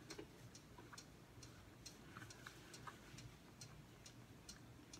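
Near silence with a quiet ticking clock, about two even ticks a second.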